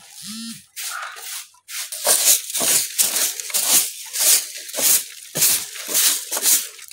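Stiff straw hand broom scrubbing and sweeping loose straw fodder out of a wooden feeding trough, in brisk scratchy strokes about two a second from about two seconds in. Near the start there is a brief low vocal sound.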